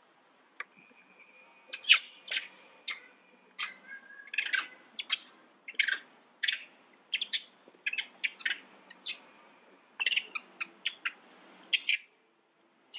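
Macaques giving a run of short, sharp, high alarm calls, about two or three a second, at a large snake the troop has surrounded. The calls start about two seconds in and stop about a second before the end.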